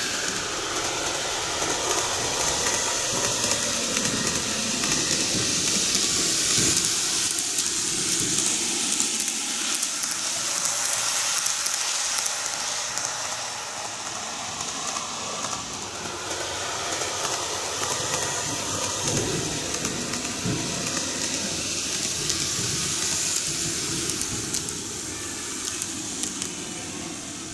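N-gauge model of a Kintetsu 12410 series four-car train running on model track, a steady whirring hiss of its motor and wheels.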